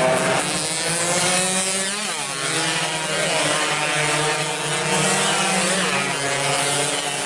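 A pack of stock two-stroke underbone racing motorcycles going past at high revs, several engines sounding at once with their pitches sliding up and down as they pass and change gear, most plainly about two seconds in.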